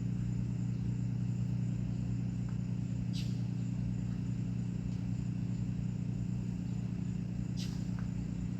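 Steady low machine hum, with two brief light clicks, one about three seconds in and one near the end.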